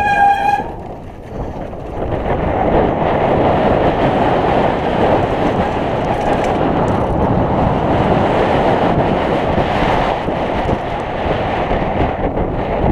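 Steady rumble and rattle of a mountain bike descending a rough dirt trail, knobby tyres rolling over the ground, with wind buffeting the action camera's microphone. A steady squeal cuts off within the first second.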